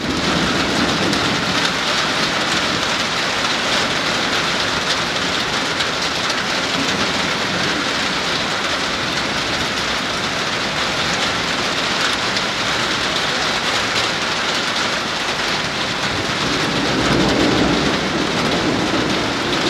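Heavy rain falling steadily, with a low rumble of thunder swelling near the end.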